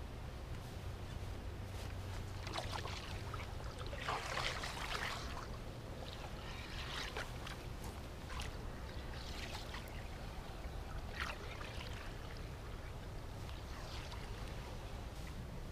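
Soft, irregular splashes and laps of water around a fishing kayak's hull, over a low steady rumble.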